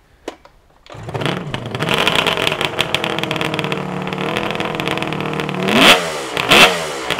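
Kawasaki 400 motorcycle engine starting from cold about a second in, then running at a steady fast idle, with two quick throttle blips near the end.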